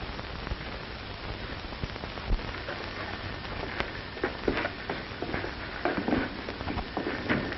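Steady hiss and crackle of an old film soundtrack, with a few faint, brief sounds in the second half.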